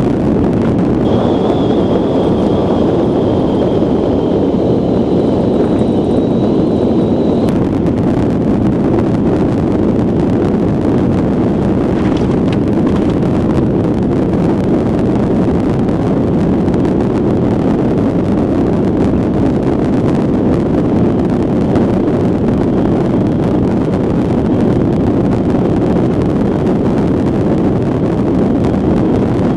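Iceboat sailing fast on black ice, heard from a camera on the hull: a loud, steady noise of the runners on the ice mixed with wind on the microphone.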